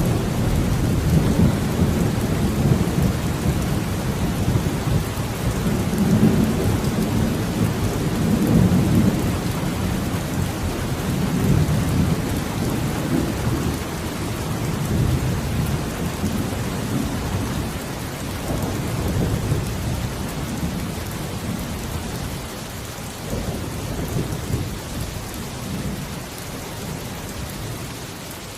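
Steady rain falling, under a long, low rumble of rolling thunder that swells several times early on and gradually fades away toward the end.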